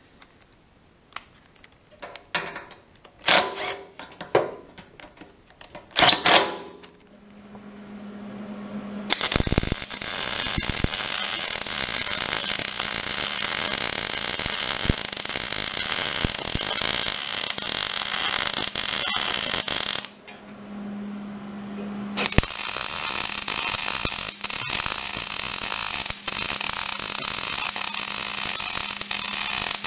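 A few short bursts of a cordless drill, then two long runs of MIG welding: a steady crackling arc lasting about eleven seconds, a brief pause with only a low hum, then a second weld of about eight seconds.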